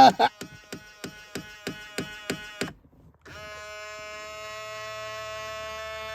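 2000 Ford Explorer XLT power driver's side mirror motor running with a rhythmic clicking, about three clicks a second. It stops briefly and then runs again as a steady buzz.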